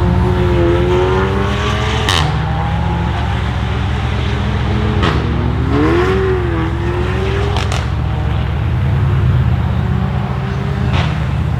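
Tuned Volkswagen Golf 7 R's turbocharged four-cylinder engine running loud, with its pitch rising and falling in two smooth revs and a few sharp exhaust pops, about four in all.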